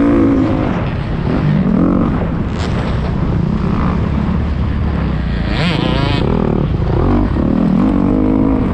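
Motocross dirt bike engine being ridden hard, its revs rising and falling with throttle and gear changes, with a sharper, higher rev about five and a half seconds in.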